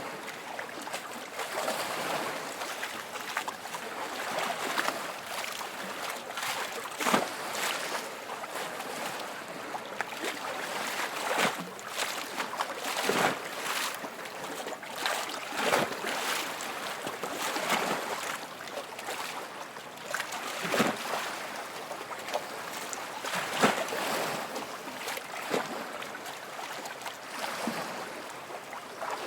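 Small waves lapping and splashing against the shore, with a steady wash of water and irregular sharper splashes every second or two.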